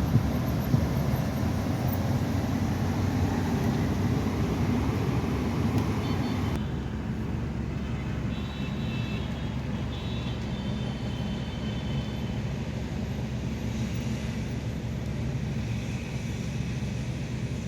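Steady vehicle and traffic noise, dominated by low rumble, that drops in level about six and a half seconds in. Faint high-pitched beeping tones are heard a little past the middle.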